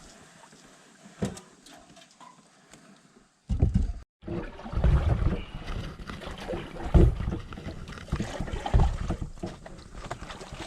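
Water splashing and sloshing around a small boat on the water, with wind buffeting the microphone. Fairly quiet with a few knocks at first, then after a brief cutout the low, irregular wind rumble and splashing get much louder.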